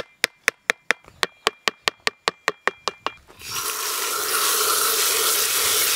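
Quick, even taps on the side of a cardboard concrete form tube filled with dry concrete mix, about four a second, to settle voids in the mix. About three seconds in, the taps stop, and a moment later a garden hose spray nozzle on its shower setting starts hissing water into the tube.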